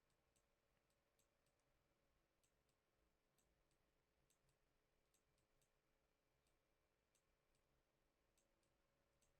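Near silence, with faint, irregular computer mouse clicks in small clusters.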